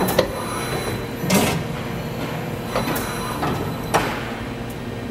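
FANUC Alpha T10A drill-tap center's turret tool magazine indexing during a tool change: four sharp mechanical clunks and short whooshes spread over a few seconds, over the machine's steady hum.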